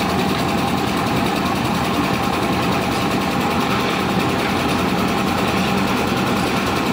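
Engine of a concrete lift mixer machine running steadily at a constant speed, driving the mixing drum.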